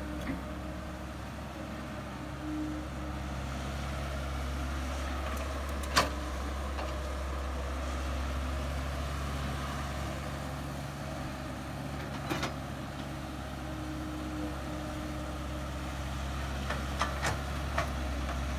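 Caterpillar E110B hydraulic excavator's diesel engine running steadily under digging work. Sharp knocks about six seconds in, about twelve seconds in, and a few near the end.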